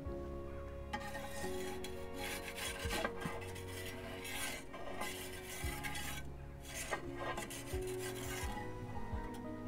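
Perforated metal pizza peel scraping across the baking stone of a gas pizza oven as it slides under the pizza to turn it mid-bake, in several strokes with short pauses. Background music with held notes plays underneath.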